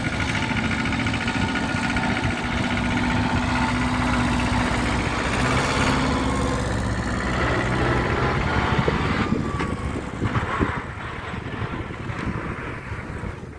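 Tractor engine idling steadily, close by, growing fainter about ten seconds in.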